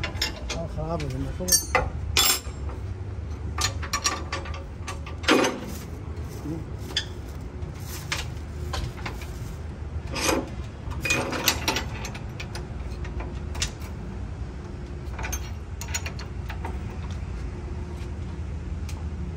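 Irregular knocks and clinks of tools on metal, some briefly ringing, scattered unevenly through, over a steady low hum.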